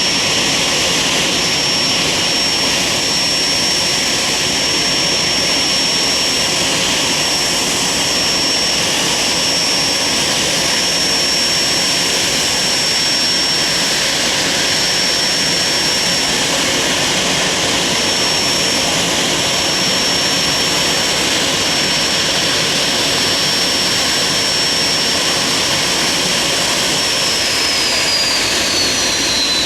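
Bombardier Challenger 350's Honeywell HTF7350 turbofan engines running steadily: a jet roar with a high, steady whine that begins to fall in pitch near the end.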